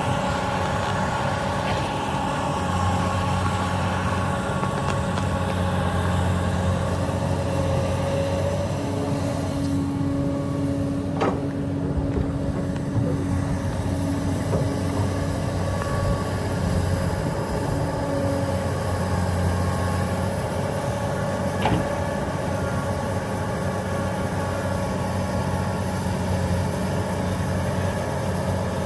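Heavy diesel machinery of an excavator and dump trucks running steadily under load, a constant engine hum with a higher hydraulic whine. Two short, sharp knocks, about eleven and twenty-two seconds in.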